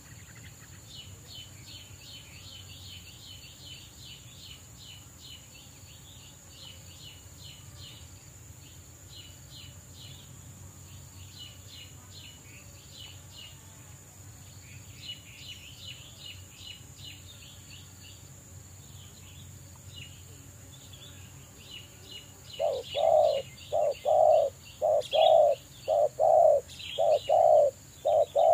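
Spotted dove cooing loudly in a series of low coos, about one a second, starting about 22 seconds in. Under it there is fast, high chirping and a steady high insect hum.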